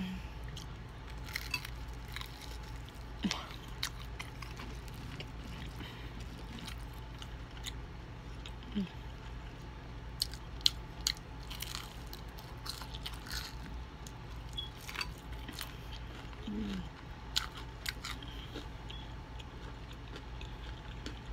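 Close-up chewing and biting of crispy fried chicken, with sharp crunches of the breading at irregular moments. A steady low hum runs underneath.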